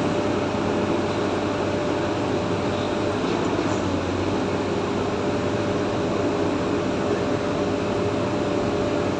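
A steady mechanical hum with a few faint steady tones, unchanging throughout.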